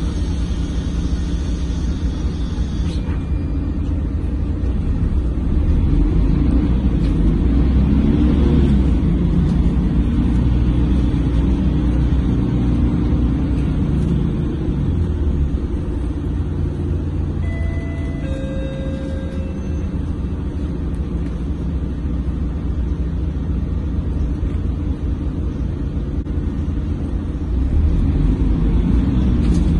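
Mercedes-Benz OC500LE city bus running, heard from inside the cabin: a steady low engine and road rumble that swells briefly several seconds in. A few short tones sound about two-thirds of the way through.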